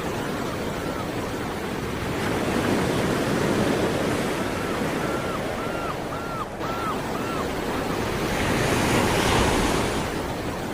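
Sea waves rolling in and washing up the shore, the surf swelling twice: a couple of seconds in and again near the end, the second surge hissier. A faint series of about seven short chirps sounds over the surf in the middle.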